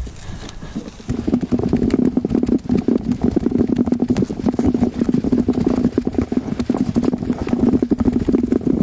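An enduro motorcycle engine running at idle. It starts about a second in and keeps up a steady, rapid pulsing.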